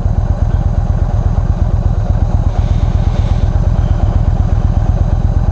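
Yamaha V-Star 1300's V-twin engine idling with a steady, even low beat, heard through the bike-mounted action camera's microphone.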